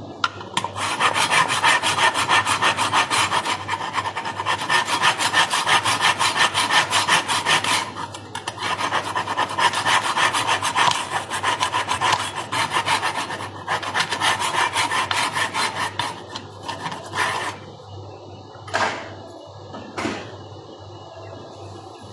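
A kitchen knife being sharpened: rapid, rhythmic back-and-forth scraping strokes of the blade, with short pauses about 8 and 13 seconds in, then three separate single strokes near the end.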